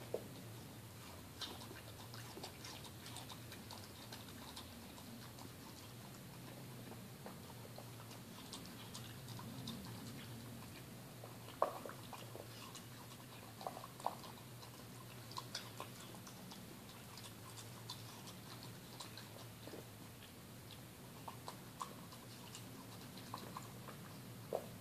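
A West Highland White Terrier eating pieces of pear from a stainless-steel bowl: quiet chewing with scattered sharp clicks and clinks of teeth and tag against the metal, a few louder ones midway and near the end, over a faint steady hum.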